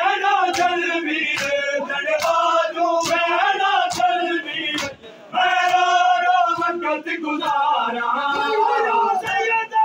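A crowd of men chanting a Muharram noha in unison, its refrain sung by many voices, with a brief break a little before halfway. Sharp hand slaps on bare chests (matam) keep time, a little less than one a second.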